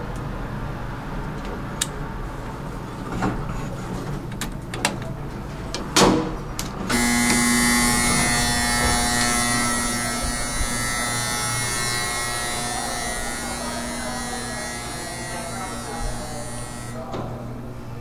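A few clicks and knocks, then a loud electric buzz that starts suddenly about seven seconds in, holds steady while slowly fading, and cuts off abruptly about ten seconds later.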